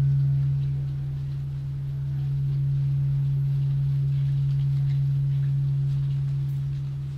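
A steady low electronic sine tone, held with a faint higher overtone above it, fading away near the end.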